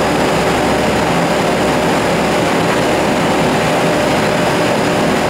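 Two-colour flexographic printing machine for plastic bag film running at a steady speed as its rollers carry the printed film web. It gives a loud, even machine noise with a few held hum tones and no knocks or changes.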